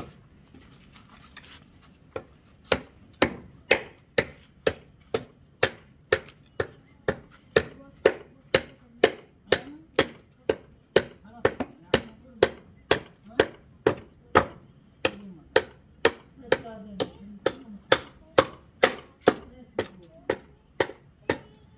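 Steady blows of a hand tool on wood, about two strikes a second, starting a couple of seconds in, as a wooden saddle tree is shaped.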